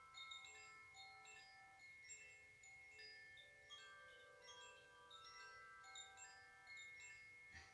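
A pair of hand-held cylindrical wind chimes swayed gently, ringing faint overlapping notes that start at random and sustain. A soft knock comes near the end.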